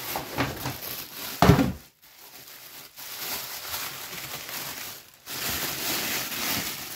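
Thin plastic carrier bag rustling and crinkling as a hand rummages through it, with one dull thud about one and a half seconds in.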